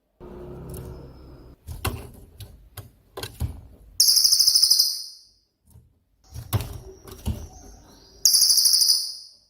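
Cililin songbird giving its 'tembakan' (shot) call: short, loud, very rapid high-pitched trilled bursts, twice, about four seconds apart. Between them there are scattered knocks and low rustling.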